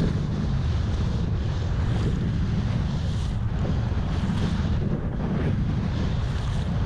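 Wind buffeting the microphone: a steady, low noise with no distinct events.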